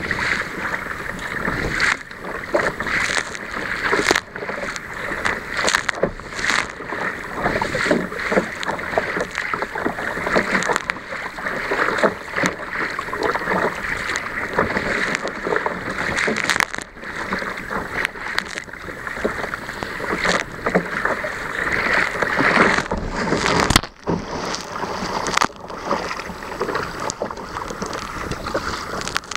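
Sea kayak pushing through rough, choppy sea: waves break over the bow and spray washes across the deck in many irregular splashes, over a constant rush of water along the hull.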